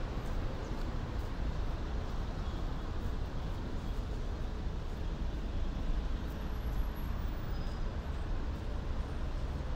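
Steady road traffic from cars passing on a multi-lane street, heard as a continuous low rumble with no single vehicle standing out.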